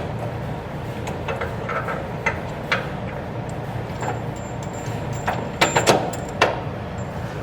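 Scattered metallic clicks and knocks of hand tools and hardware as a bolt is fitted to the shock absorber mount, a few in quick succession near the end, over a steady low hum.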